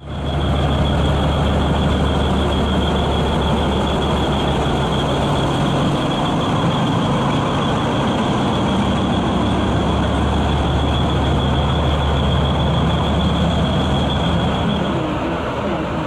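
Diesel switch engine running steadily: a low engine drone with a thin, steady high whine over it that stops near the end.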